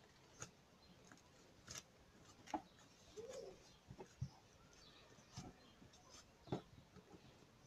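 Soft homemade slime being squeezed and worked by hand, giving faint, scattered wet squelches and small pops about once a second.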